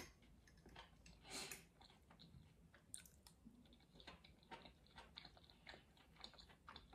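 Faint close-up chewing of fried potatoes and mushrooms: soft, irregular wet mouth clicks and smacks.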